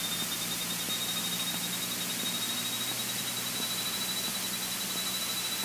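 Cessna 152 cockpit audio from the intercom feed: a steady hiss with a low, even engine hum underneath and a thin high whine that creeps slowly up in pitch.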